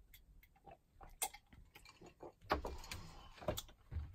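A few small clicks and a couple of dull knocks as a drink is gulped from a glass and the glass is set down on a shelf.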